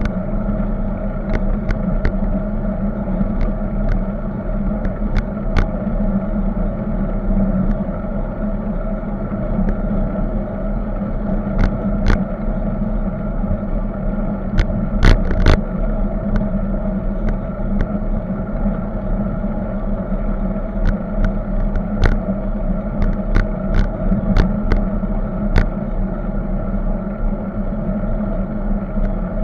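Steady road rumble and wind noise from a camera mounted on a moving bicycle, with irregular sharp clicks and rattles every second or few as the bike rides over bumps.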